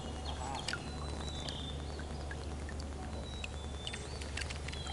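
Several birds calling: short high whistles and chirps, some sliding down in pitch, with a few faint clicks between them.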